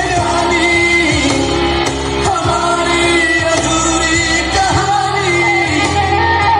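Recorded Hindi film song playing loud: a sung melody over instrumental backing.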